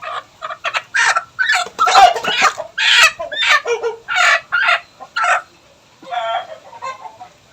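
A native chicken squawking loudly in a rapid series of short, harsh calls, then a quieter fast rattling cluck about six seconds in: alarm calls from a bird being held and handled.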